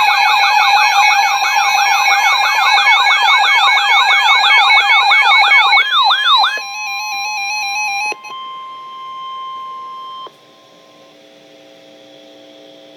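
Electronic yelp siren from an emergency-alert broadcast, fast rising-and-falling wails about four a second, cutting off about six and a half seconds in. Then steady electronic tones that change twice and settle into a quieter held chord.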